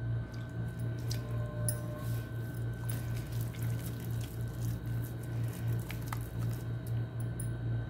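Hand squishing through a thick, wet masala paste in a bowl, with a little water just added to loosen it. Over a steady low hum.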